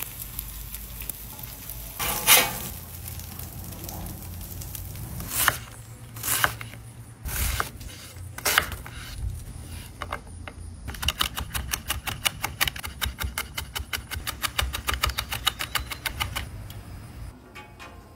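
Food-preparation sounds: several separate sharp knocks and clatters, then a fast, even run of chopping or tapping strokes lasting about five seconds, over a low steady hum.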